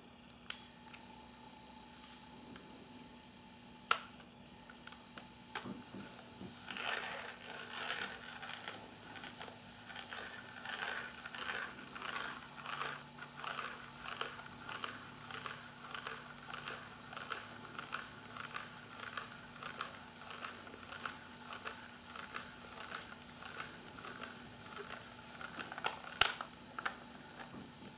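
Film being rewound by hand in a Konica EFJ 35 mm compact camera: a long even run of small ratcheting ticks, several a second, starting about six seconds in. There are a couple of single clicks before it and a louder click near the end.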